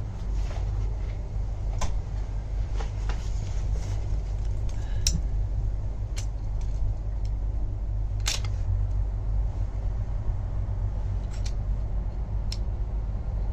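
Scattered sharp clicks and taps of small parts and tools being handled, irregularly spaced, over a steady low rumble.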